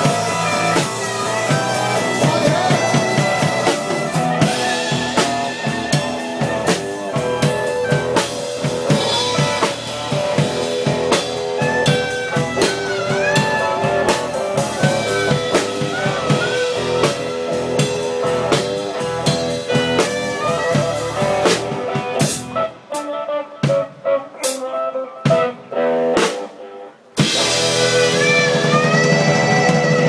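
Live blues band: a clarinet plays lead over electric guitar and a drum kit. About 23 seconds in, the band drops to a few scattered hits for several seconds, then comes back in full.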